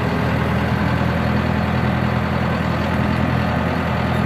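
John Deere tractor's engine running steadily, heard from inside the closed cab: a constant low drone with no change in pitch.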